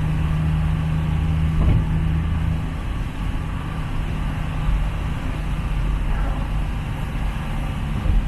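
Hawk HF Stratos replica's engine droning steadily on the move, heard from inside the cabin over the hiss of tyres and rain on a wet road. The engine note drops back about three seconds in.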